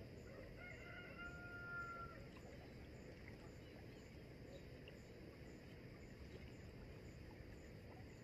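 Near silence: faint steady outdoor background noise, with one faint, brief pitched call about a second in.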